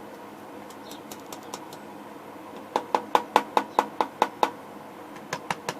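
Rapid series of sharp metallic clicks, about five a second, from the detented rotary switches of a Tektronix 585A valve oscilloscope being turned through their positions. A first run of about nine clicks comes a little under three seconds in, and a second run starts near the end.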